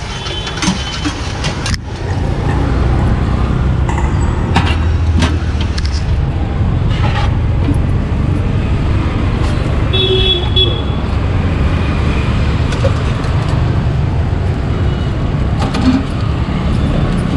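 Steady low rumble of street traffic with a vehicle horn tooting briefly about ten seconds in. A few sharp clicks of a metal spatula on the griddle and steel plate come in the first several seconds.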